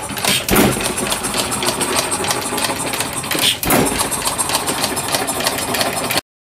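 One-third-scale Galloway hit-and-miss engine running under its own power, belt-driving a scale model grist mill: a steady rapid mechanical clatter with two louder beats about three seconds apart. The sound cuts off suddenly near the end.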